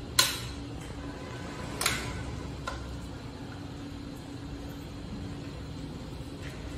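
Steady low indoor hum, broken by two sharp taps: the loudest just after the start, a smaller one about two seconds in.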